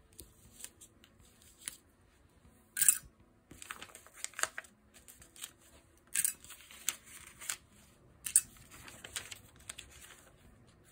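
Sheets of paper sewing pattern rustling and crinkling as they are handled and lifted off felt pieces, in short bursts with several sharper crackles spread through.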